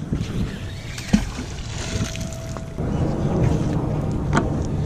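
Lake water lapping and sloshing against a wooden dock, with wind on the microphone, growing rougher and louder about three seconds in. A single sharp knock comes about a second in.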